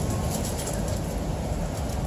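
Steady rain and wind noise on an open balcony, a low rumble under an even hiss with faint ticking of drops.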